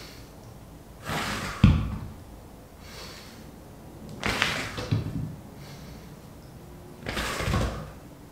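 Three forceful exhales, about three seconds apart, each as a kettlebell is pulled across the floor under the body, with dull thuds as the kettlebell is set down.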